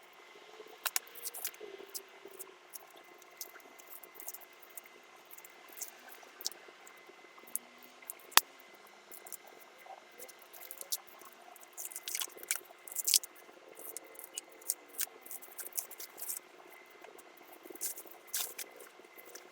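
Scattered, irregular clicks, taps and light rustling of parts and packaging being handled.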